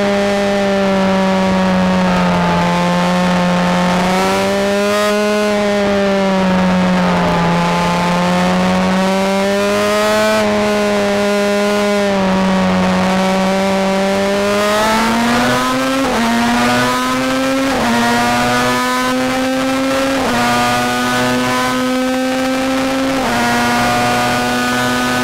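Star Mazda race car's Mazda rotary engine heard on board, its revs rising and falling through the corners. In the second half it pulls hard down the straight with four upshifts, the pitch climbing and dropping sharply at each shift.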